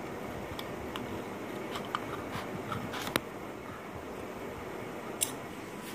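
Scissors cutting through thin card: a few short snips and clicks, the sharpest about three seconds in, over steady room hiss.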